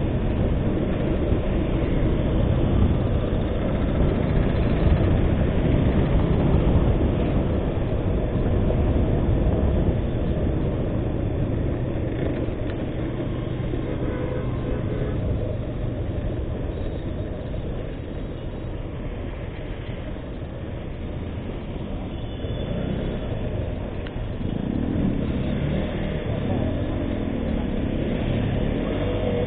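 Motorcycle riding noise: wind buffeting the microphone over the bike's engine, loudest in the first ten seconds and easing off after the middle. Near the end a pitch rises and falls a couple of times.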